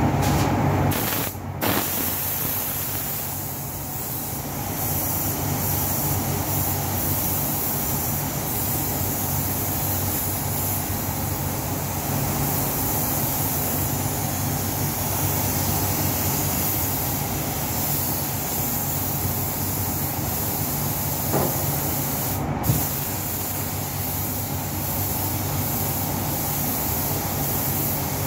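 Air hiss of a gravity-feed paint spray gun over the steady hum of spray-booth ventilation fans. The hiss drops out briefly about a second and a half in and again near the end, as the trigger is let go.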